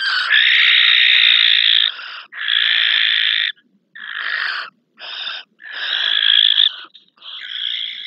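Barn owls screeching: harsh, hissing screeches in a run of six, the first two long and the rest shorter, as the female takes a delivered mouse from the male at the nestbox.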